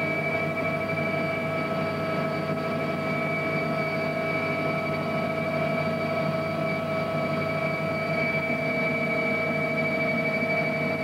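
A steady mechanical drone with several unchanging whining tones over a low rumble.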